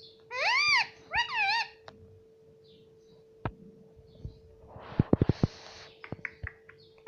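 Pet ringneck parrot giving two short, high-pitched calls in quick succession, each rising and then falling in pitch. A few seconds later there is a brief rustle with a quick run of clicks.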